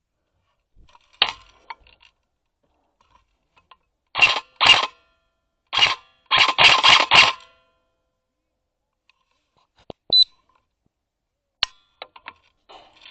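Airsoft replica guns firing in short bursts, with a longer rattling string of shots in the middle. A short high beep comes about ten seconds in, with a few sharp clicks after it.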